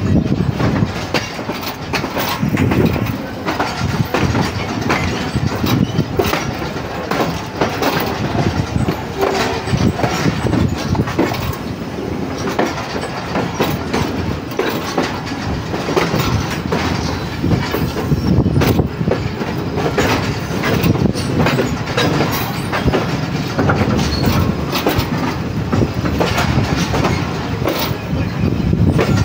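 A passenger train heard from aboard, its coach wheels clattering over rail joints and points with a steady running rumble underneath, as it runs into a junction yard. The clicks come often and at uneven spacing.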